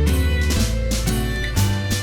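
Background music with held string and guitar notes over a steady beat.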